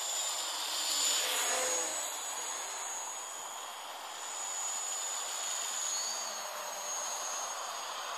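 Gaui 330X-S quadcopter's electric motors and propellers whining in flight, loudest about a second in as it passes close, with the pitch dropping as it goes by, then a steadier whir as it flies on.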